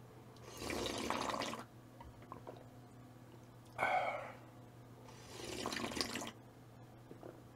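A person slurping soup while eating: two long slurps of about a second each, near the start and about six seconds in, with a short sharp sip between them about four seconds in.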